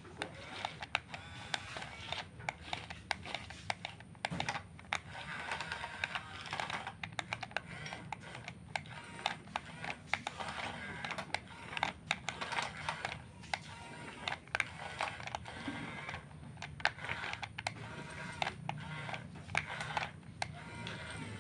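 Rapid, irregular clicking and rattling from radio-controlled model construction machines at work, with a faint whine from their small motors underneath.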